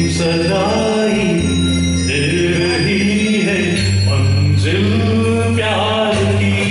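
A man singing a song into an amplified microphone over a recorded backing track with a steady bass line.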